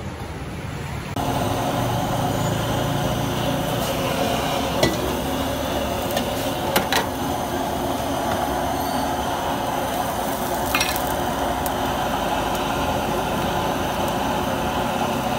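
About a second in, a steady rush of a gas wok burner and oil sizzling in the wok sets in and holds, with a few sharp clicks scattered through it. Before that, a quieter street background.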